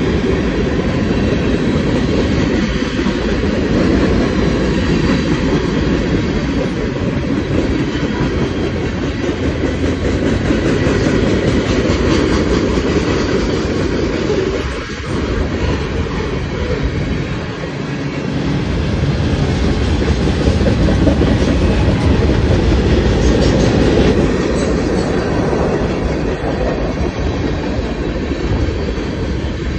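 Freight cars of a Union Pacific manifest train rolling past at close range: a steady rumble of steel wheels on the rails, with clacking as the wheels cross the joints of the grade crossing.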